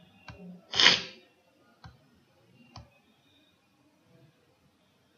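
A short, loud burst of noise on the microphone about a second in, with a few faint clicks before it and two more after, as of a computer mouse being clicked while drawing on a whiteboard.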